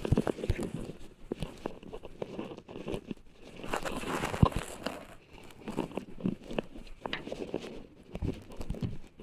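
Irregular rustling and crinkling with scattered knocks and crunches, the loudest knock about four and a half seconds in.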